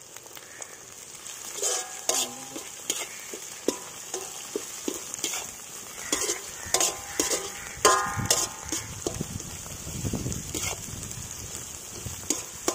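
Onions and green chillies sizzling in hot oil in a black metal kadai, with a metal ladle scraping and clinking against the pan as they are stirred.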